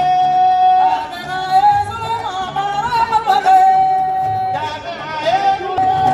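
A singer holding long, high, wavering notes over a steady low beat.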